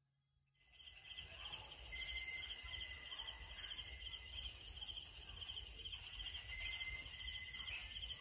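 Chorus of night insects, several trilling and pulsing at once, fading in about half a second in, with a low rumble underneath.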